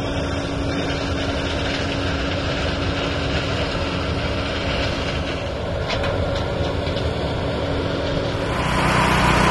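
Heavy farm machinery running steadily, a continuous mechanical noise with a steady hum, growing louder shortly before the end.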